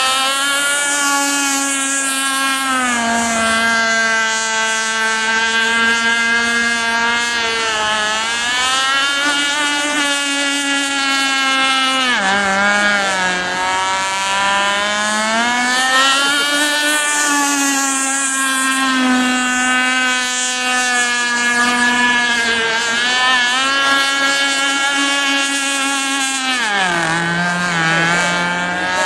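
A motorboat engine running hard at high revs, its pitch dipping and climbing again several times as the throttle or its distance changes.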